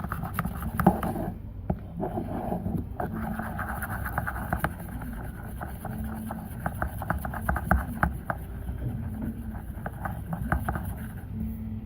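A utensil stirring a sticky sour cream and salt mixture in a bread pan, with irregular clicks and scrapes as it knocks against the pan.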